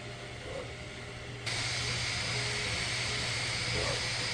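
Bambu Lab 3D printer running: a steady hum and fan hiss that jumps abruptly louder about a second and a half in, with a few short, brief tones after that.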